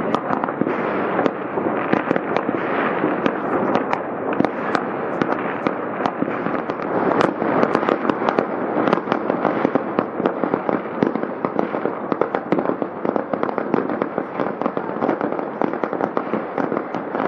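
Many fireworks and firecrackers going off at once: a dense, continuous barrage of overlapping bangs and crackling, with frequent sharp pops.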